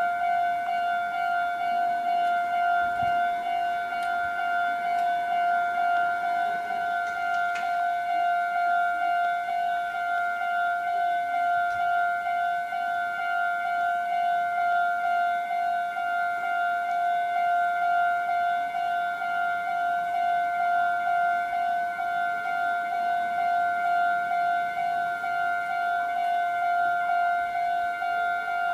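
Japanese railway level-crossing electronic warning bell ringing: one steady pitched ding repeated evenly over and over, signalling that a train is approaching and the crossing is closed.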